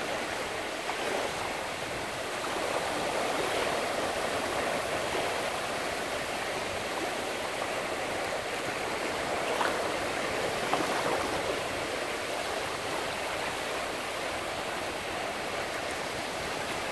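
Small waves breaking and washing up over a sandy shallow shore: a steady rush of surf that swells and eases, with a brief fizz of foam about ten seconds in.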